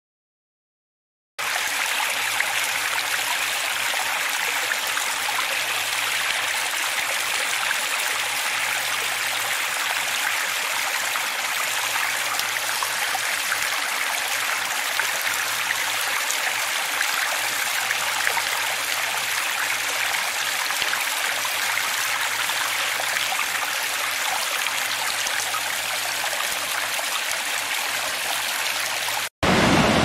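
Water splashing and trickling down a small cascade of stone ledges, a steady rush that starts about a second and a half in. Near the end it cuts out for a moment and a louder, fuller rush of fast stream water takes over.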